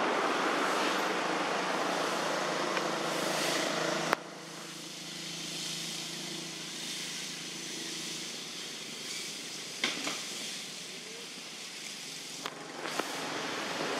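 Outdoor background noise: a steady rush with a faint low hum, like distant traffic. It drops abruptly about four seconds in to a quieter rush, with a few sharp clicks later on.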